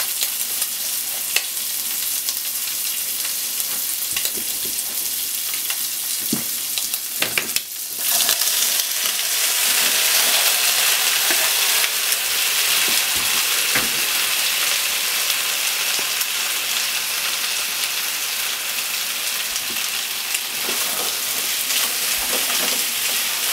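Bacon sizzling in hot oil in a frying pan, stirred now and then, with a few small pops and taps. About 8 seconds in the sizzle turns louder and fuller, with a pan of raw potato sticks now stir-frying alongside the bacon.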